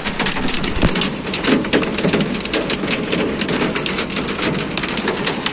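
Heavy rain coming down steadily, with dense sharp ticks of drops striking a hard surface.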